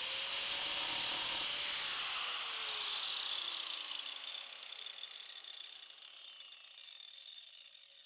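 Handheld 4-1/2-inch angle grinder with a diamond blade, running at full speed, then switched off about two seconds in. Its whine falls in pitch and fades as the blade coasts down.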